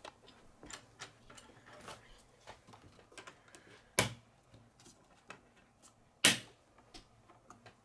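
Plastic K'nex rods and connectors being handled and pressed together on a wooden table: many small scattered clicks, with two sharper snaps about four and six seconds in.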